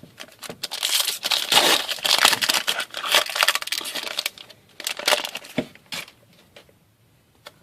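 Foil wrapper of a hockey card pack crinkling and tearing for about four seconds, then another short crinkle about five seconds in.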